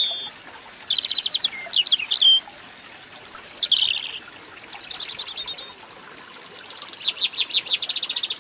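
A songbird singing outdoors: several short phrases of chirps and rapid trills, one a run of notes falling in pitch, ending in a long fast trill.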